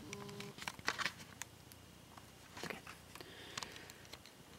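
Faint scattered clicks and taps of a plastic Kre-O building-block Optimus Prime truck cab being handled and set down on a wooden table.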